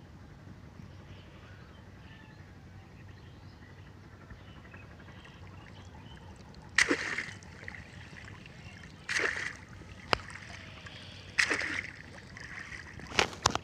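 Cage crab trap hauled from shallow muddy water and dunked back in, splashing four or five times a second or two apart from about halfway through; before that, only a low steady background.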